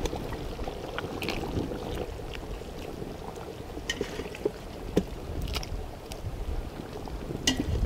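Chettinad chicken curry boiling in a wide uruli, with short wet splashes as raw chicken pieces are dropped into it by hand.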